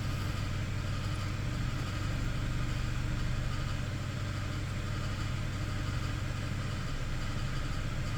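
Hyundai Sonata engine idling steadily, with no revving.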